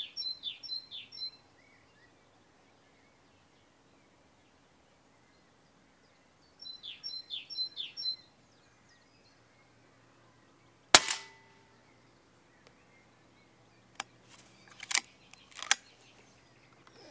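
A single sharp shot from a silenced Daystate Red Wolf pre-charged pneumatic air rifle, about eleven seconds in. Before it, a small bird gives two short runs of three or four quick falling chirps. A few sharp clicks follow the shot a few seconds later.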